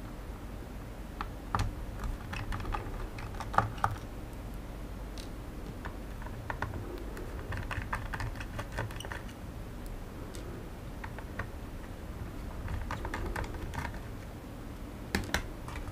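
Small hand screwdriver backing a screw out of a Xiaomi Mi Drone 4K remote controller's plastic case: scattered light clicks and ticks of the tool on the screw and casing, coming in short clusters.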